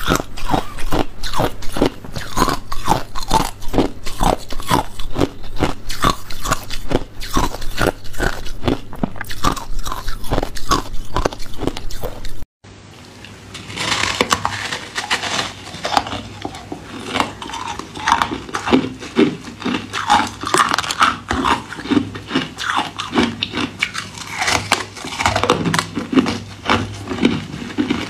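Ice being bitten and chewed, in loud rapid crunches. About twelve seconds in the sound cuts out abruptly, then resumes as a looser, more irregular crunching.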